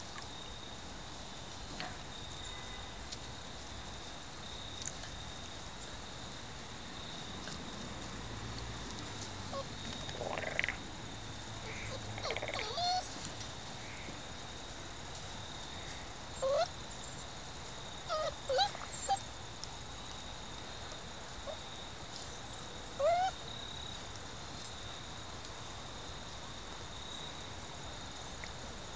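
Puppies whining and yelping: a handful of short, rising cries scattered through the middle, a few in quick succession near the end.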